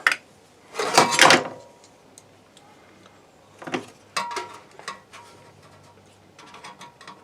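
Metal parts of an RV furnace being handled: a scraping rasp about a second in, then a few separate knocks and a light clatter near the end.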